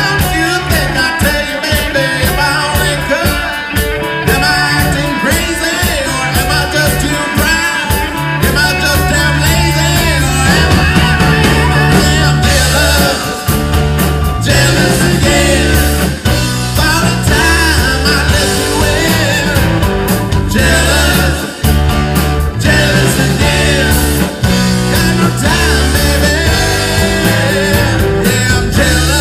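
Live rock band playing: electric guitars and drums with a lead singer, heavy bass notes coming in strongly about eight seconds in.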